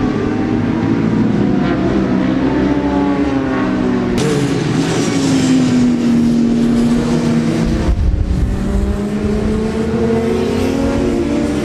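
Racing motorcycle engines at high revs as bikes lap a circuit, several engine notes gliding up and down in pitch as the bikes pass and shift gear. The sound changes abruptly about four and eight seconds in.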